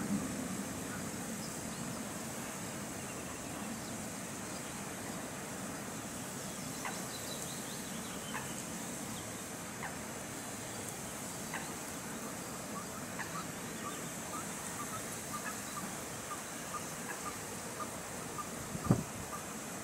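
Waterfowl calling in a long run of short notes that come quicker in the second half, over a steady background hiss. A single sharp thump sounds near the end.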